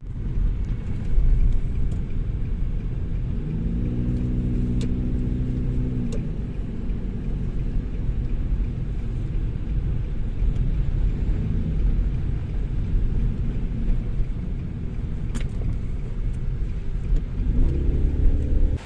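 Steady low rumble of car traffic and road noise, with a motor vehicle's engine note swelling and fading about four seconds in and again near the end.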